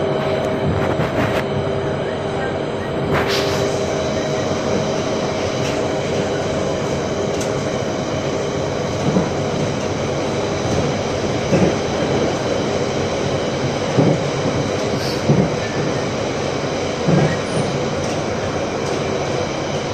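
London Underground Central Line train running, a steady rumble with a whine that fades out about halfway through. After that come short knocks every second or two.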